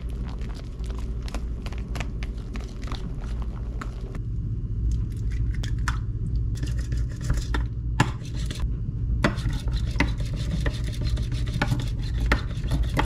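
Wooden chopsticks stirring sticky natto in a plastic tub, a quick run of small clicks and scrapes. A few separate clanks follow as a square frying pan is handled on a gas stove, then chopsticks beat eggs in a bowl with rapid clicking against its sides, over a steady low hum.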